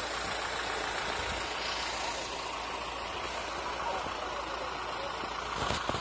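A vehicle engine idling steadily close by, with a couple of sharp knocks near the end.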